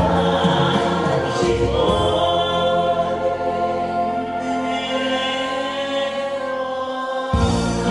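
A group of voices singing a Korean popular song together in long held notes over an instrumental backing track. The bass drops out for a moment near the end, then comes back in.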